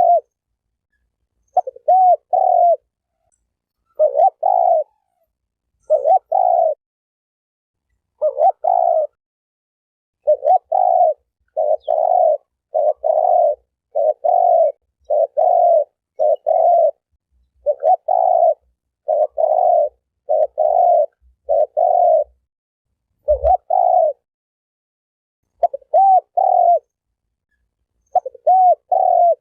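Spotted turtle dove (Terkukur) cooing: a long series of short, low coo phrases repeated every second or two. The phrases come in a faster, almost unbroken run through the middle, with short pauses before and after.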